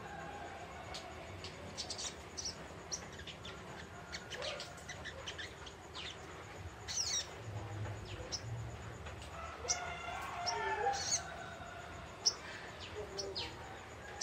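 Young wild-caught spiderhunter (sogok ontong) twittering in quick, high chirps scattered irregularly, with a few fast falling notes about seven seconds in and some lower warbling calls around ten seconds in.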